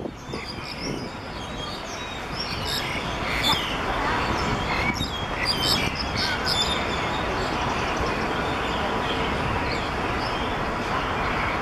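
Black-collared starlings giving short, sharp chirps and calls, most of them in the first half, over a steady background rumble.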